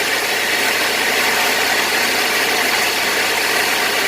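1995 Buick Regal's engine idling steadily after an oil pressure switch replacement, with a steady whir from a worn AC bearing that the owner calls loud.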